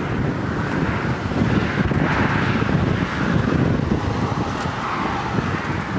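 Road traffic noise: a vehicle passing, swelling about a couple of seconds in and easing off, over a low wind rumble on the microphone.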